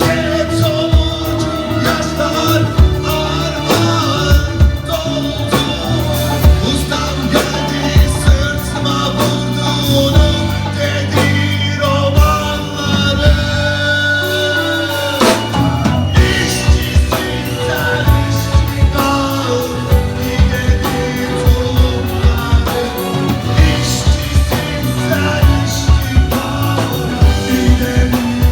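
Rock song being performed, with a drum kit keeping a steady beat, held instrumental notes and a singing voice.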